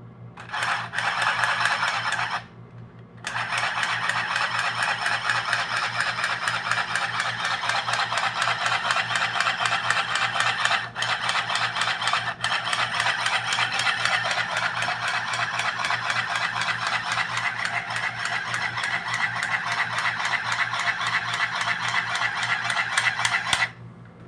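Hand-held portable sewing machine running, stitching with a fast, even clatter. It runs for about two seconds, stops briefly, then runs steadily for about twenty seconds and stops just before the end.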